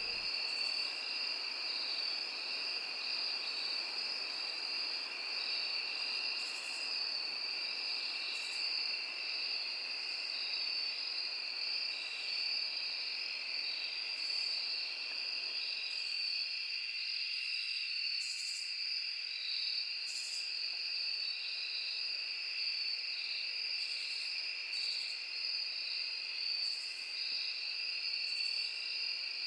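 Night-time insect chorus: a steady high-pitched chirring that does not let up, with short higher chirps breaking in every second or two.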